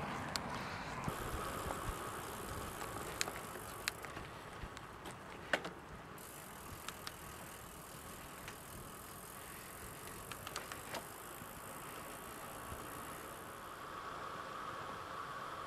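Bicycle rolling along a lane, heard from the handlebars: a steady hiss of tyres on tarmac with scattered sharp clicks and rattles from the bike over bumps.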